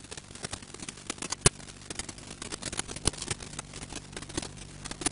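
A steady low hum with scattered sharp clicks and crackles throughout, the loudest clicks about one and a half and three seconds in: the background noise of an old recording.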